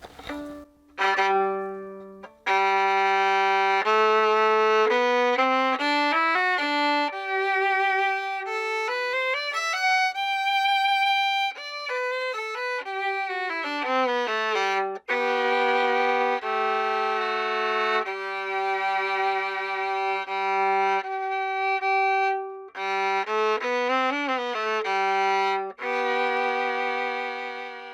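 A freshly repaired violin, a slightly large 36 cm-body instrument, played with the bow in a slow melody of long held notes that reaches down to the low G string, with a few short breaks between phrases. The maker hears its tone as warm, with a nice, rich low register.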